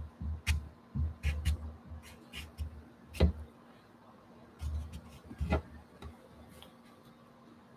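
Pastel tapping and stroking on gesso-coated watercolour paper on an easel: a series of irregular light knocks and short scratches, each with a dull low thump from the board. They stop about six seconds in.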